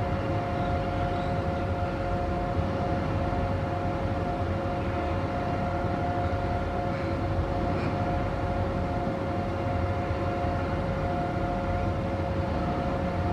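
A steady machine hum: two constant tones over a low rumble, unchanging.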